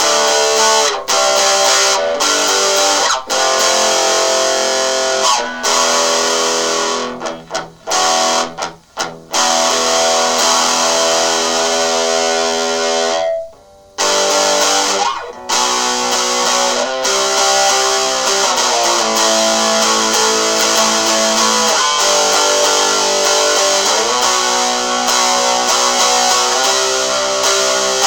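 Epiphone SG Junior electric guitar played through a small practice amp with overdrive: distorted chords and riffs, with a few short breaks where the playing stops, the longest just before the halfway point.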